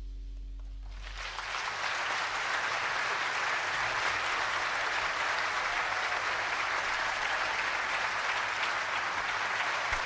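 The final chord of an acoustic song rings out and fades, and about a second in an audience breaks into steady applause that carries on without letting up.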